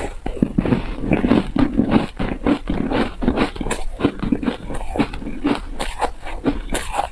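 A mouthful of frozen ice bar being chewed up close, with many quick irregular crunches a second.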